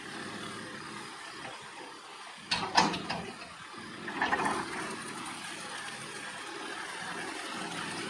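Cat TH407 telehandler running as it tips a bucket of chopped maize into a lorry's bulk tipper trailer, with a sudden loud rush of the load falling about two and a half seconds in and a smaller one about four seconds in.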